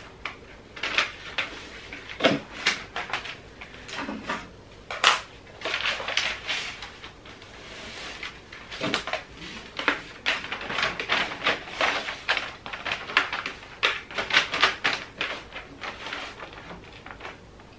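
Gift-wrapping paper rustling and crinkling in irregular crackles and a few sharper snaps as it is unrolled and folded around a cardboard shoebox.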